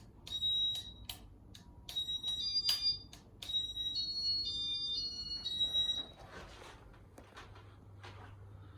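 Casablanca Inteli-touch ceiling fan control beeping through its demo mode: a quick run of high electronic beeps at a few different pitches, some short and some held, with sharp clicks among them. The beeping stops about six seconds in, and a faint low hum follows.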